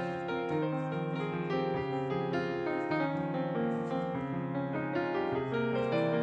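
Background piano music: a gentle melody of sustained notes over chords.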